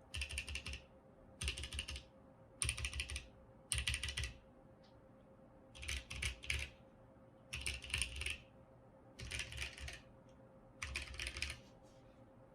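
Mechanical keyboard with lubed Novelkeys Box Cream linear switches (a Mercutio 40%) being pressed in eight short bursts of rapid keystrokes, about one burst every second and a half. Each burst is a quick run of sharp clacks.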